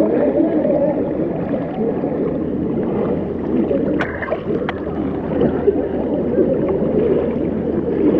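Fast-flowing muddy river water rushing and swirling around waders' legs, a steady low churning. Two short sharp clicks come about four seconds in.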